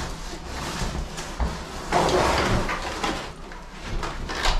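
Cardboard box rustling and scraping as a large framed boat hatch is slid back into it, with a few light knocks; the rustling is loudest about halfway through.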